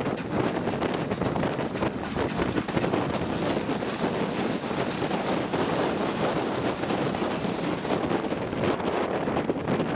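Wind buffeting a microphone held out of the window of a moving steam-hauled train, over the steady running noise of the train. A brighter hiss joins in from about three seconds in until near the end.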